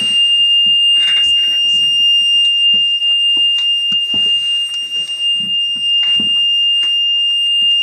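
A fire engine cab's warning buzzer sounding one steady, unbroken high-pitched tone.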